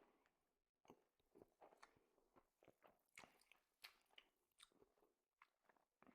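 Faint close-up chewing: a person eating, with irregular soft crunches and mouth clicks about twice a second.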